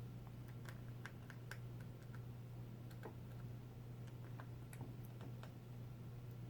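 Scattered light clicks and ticks, irregular and a few per second, from small parts and tools being handled during laptop screen replacement, over a steady low hum.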